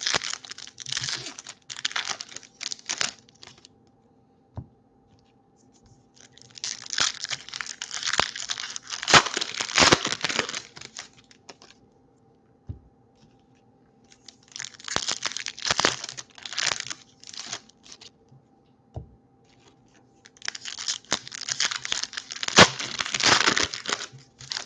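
Foil wrappers of Topps baseball card packs being torn open and crinkled by hand, in four bouts of a few seconds each with short quiet gaps between.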